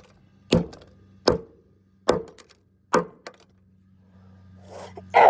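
Four hard blows striking a plastic computer mouse as it is smashed, about one every 0.8 seconds, each a sharp knock with a short ring. A louder, different sound with falling tones comes near the end.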